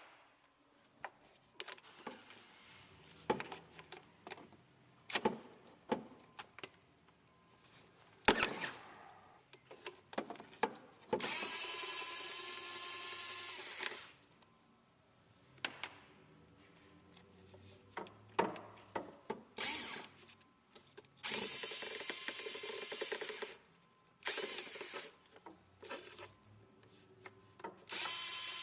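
Bolts coming out of the timing cover area of a Hyundai Elantra 2.0L engine: a cordless power tool whines in runs of two to three seconds, four times, between clicks and knocks of hand tools and parts being handled.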